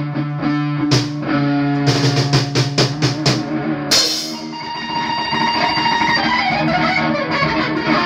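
An amplified electric guitar and a drum kit playing rock together live. The guitar holds low notes over a quick run of drum hits, then a cymbal crash about halfway through rings out and fades under a sustained guitar chord.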